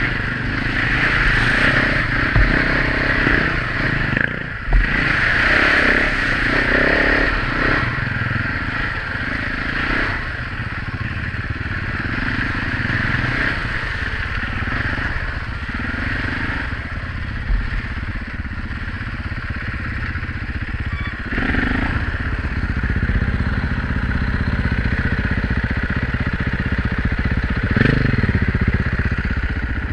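Enduro dirt bike engine running under way on a muddy trail, heard from the rider's helmet, with a few sharp knocks from the bike over bumps.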